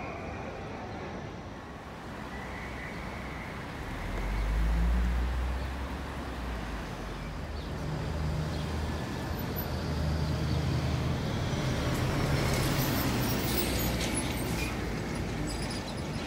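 City street traffic: car and van engines running and passing at a crossing, a low rumble that swells as one vehicle passes about five seconds in, with more engines going by through the second half.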